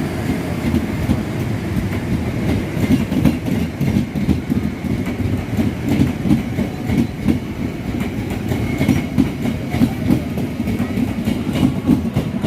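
Train passing close by, its wheels clattering in a steady run of clacks over the rail joints.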